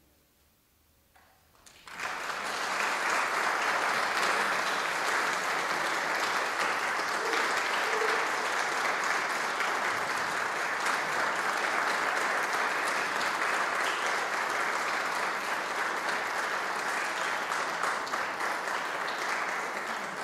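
Audience applauding: after about two seconds of near silence the clapping breaks out suddenly and goes on steadily.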